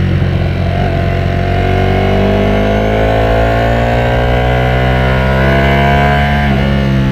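Ducati Panigale V4S's V4 engine pulling under acceleration, its pitch rising steadily in one gear. Near the end there is a quick upshift: a short break, and the pitch drops.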